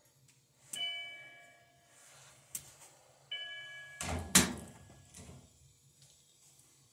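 Two metallic clinks, each ringing on for about a second, from the washer's steel suspension rods being handled against the machine, followed by a louder knock about four seconds in.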